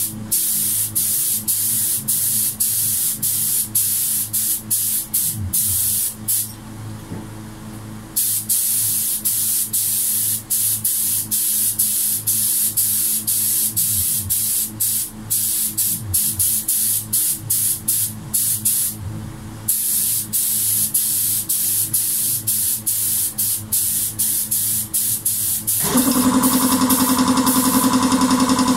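Air spray gun hissing in many short bursts, one per trigger pull, as clear topcoat is sprayed, with a longer pause a few seconds in. About 26 s in, a loud, steady motor hum starts and runs under the spraying.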